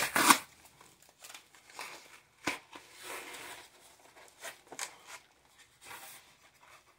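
A package being opened by hand: cardboard and packing rustling and tearing, with a sharp knock about two and a half seconds in and a few small clicks later.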